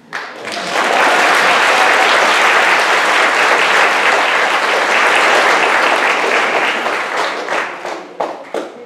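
Audience applauding, swelling over the first second and dying away into a few scattered last claps near the end.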